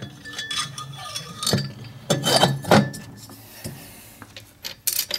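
Harley-Davidson Evolution cylinder being set down onto the crankcase, with a series of metal clinks and knocks as it touches the case and the pushrods. The loudest clatter comes about two to three seconds in.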